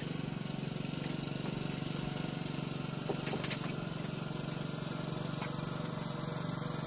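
A small engine running steadily at a constant speed, a low even hum, with a few faint clicks about three seconds in and again near five seconds.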